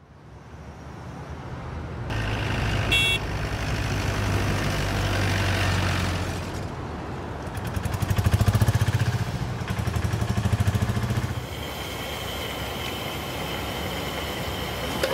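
Street traffic: vehicle engines rumbling past, swelling and fading, with one vehicle passing close about eight to nine seconds in. A short high beep comes about three seconds in.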